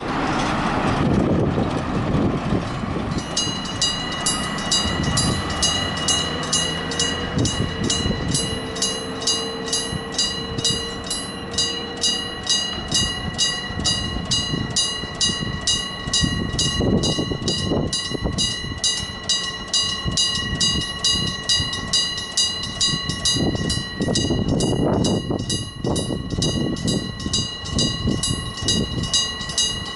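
Electric-bell level crossing warning bell (denrei-shiki crossing bell) starting about three seconds in and striking in a steady beat of about two strikes a second, each strike ringing on. Train noise runs underneath and swells louder a few times.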